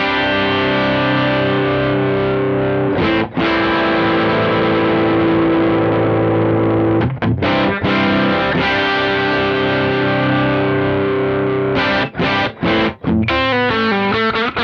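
Electric guitar played through a Kemper Profiler's compressor stomp set to high squash: chords strummed and left to ring, their level held almost flat by heavy compression that "just slams it". A few quicker picked notes come near the end.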